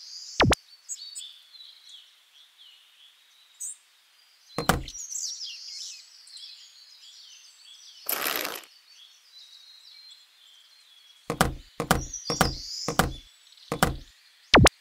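Sharp clicks of plastic building-block pieces snapping together: one early, a pair about four and a half seconds in, and a quick run of about seven near the end. A short rushing whoosh comes about eight seconds in, and faint birdsong chirps run underneath.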